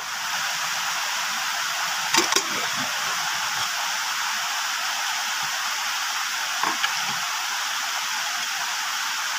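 A steady, even hiss, with a few light clicks about two seconds in and again near seven seconds as a metal pot lid and a serving spoon touch the rice pot.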